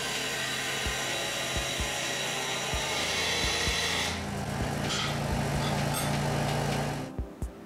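Scroll saw running and cutting through a thin brass strip. About four seconds in, the hiss of the cut drops away and the saw runs on freely, then it switches off about seven seconds in.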